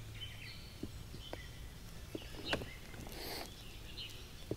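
Faint lakeside ambience with distant bird chirps, a few light clicks and a brief rustle, the sharpest click about halfway through.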